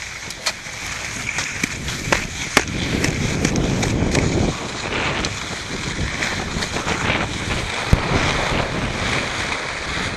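Snowboard sliding and carving over snow, a rough scraping hiss that swells from about three seconds in, with wind buffeting the helmet-mounted microphone and a few sharp knocks.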